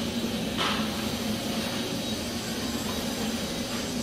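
Steady machine hum with an even airy noise, the running of cafe equipment or ventilation, with a brief soft rustle about half a second in.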